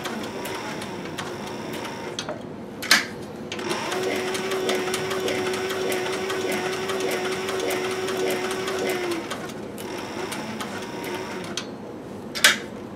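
Industrial sewing machine stitching through thick lined leather, running in stretches and stopping twice. During each stop there is a single sharp click, the loudest sound.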